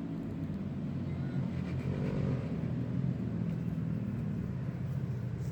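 A car's engine running close by, a steady low hum that swells about two seconds in.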